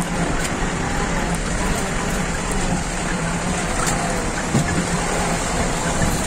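A vehicle driving over a rough gravel and rock road: a steady low engine hum under the crunching noise of tyres on loose stones, with a few faint knocks.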